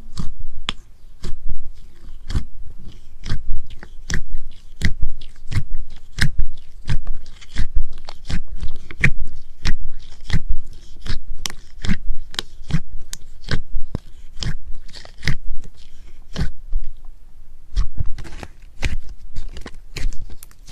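Slime being squeezed and worked, giving an irregular run of sharp clicks and crackly pops, roughly two a second.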